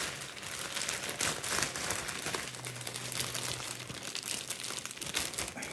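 Thin clear plastic bag crinkling with a dense, irregular run of crackles as it is handled and the Barbie doll is taken out of it.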